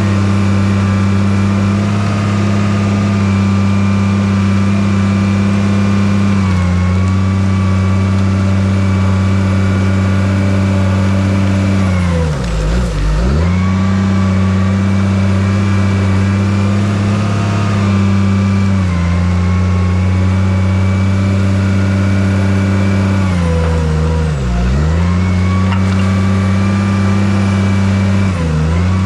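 Bulldozer's diesel engine running steadily at high revs; three times, about twelve seconds in, near twenty-five seconds and near the end, it briefly bogs down in pitch and recovers as it takes load.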